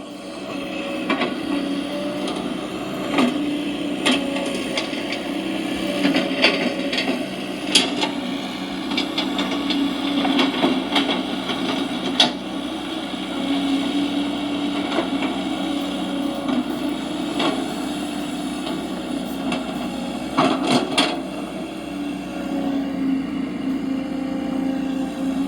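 Radio-controlled construction models at work: a small motor or hydraulic pump whines steadily, its pitch and strength shifting with load, while short clicks and knocks of dirt and parts come at irregular moments, with a cluster of sharper knocks about twenty seconds in.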